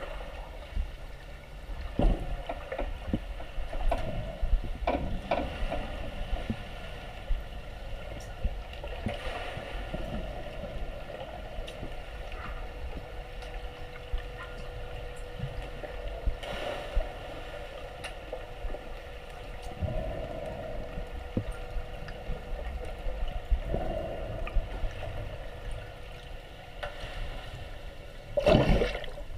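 Pool water heard through an underwater camera: a muffled wash of water with scattered knocks and clicks and a faint steady hum. A louder rush of water comes about a second before the end.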